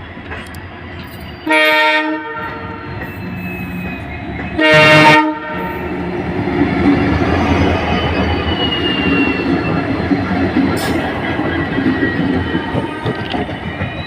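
An EMD WDP4-class diesel locomotive sounds two short horn blasts about three seconds apart. The rumble of its EMD 710 two-stroke diesel engine and the train's wheels on the rails then builds and stays steady as the train passes.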